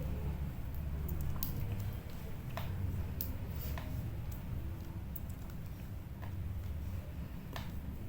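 Scattered small clicks and taps as a Cat6 UTP network cable end is handled and worked with hand tools, over a low steady hum.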